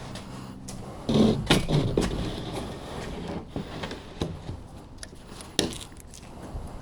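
A sheet of OSB being handled and moved: a loud scrape and knocking starting about a second in, then a few sharper knocks.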